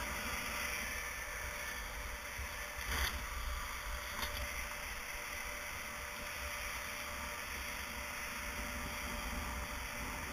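Wind buffeting an action-camera microphone: a ragged low rumble under a steady hiss, with two brief knocks about three and four seconds in.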